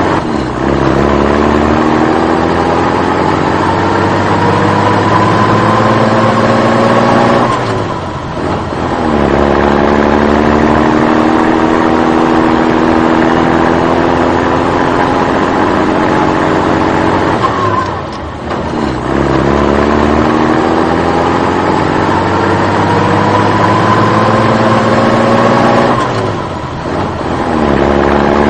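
Engine running with its pitch climbing slowly over several seconds, dropping back briefly and climbing again, about three times over in an even repeating cycle.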